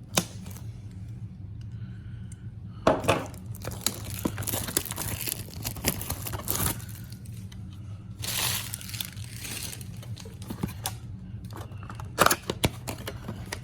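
Plastic shrink wrap torn and crumpled off a cardboard trading-card box, coming in several bursts of tearing and crinkling, over a low steady hum.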